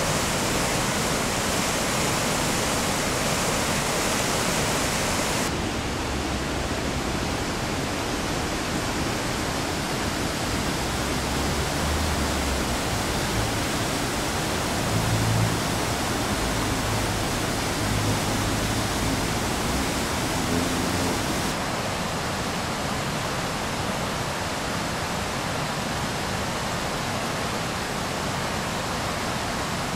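White water of the River Dee rushing over rocky rapids, a steady, even roar. Its tone turns duller after about five seconds and shifts again about two-thirds of the way through, with some low rumbles in the middle.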